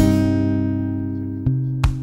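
Background music on acoustic guitar: a chord is struck and left to ring, fading slowly, with a fresh low note about one and a half seconds in.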